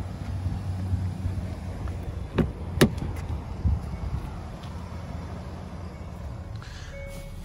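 Rear door of a 2021 Hyundai Elantra opened by hand: two sharp clicks of the handle and latch about two and a half seconds in, over wind rumble on the microphone. Near the end an electronic chime starts beeping.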